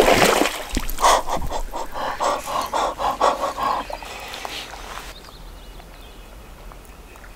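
A hooked trout splashing hard at the lake surface as it hits the lure, followed by a quick run of short, evenly spaced pulses, about four a second, for a few seconds, which then fade away.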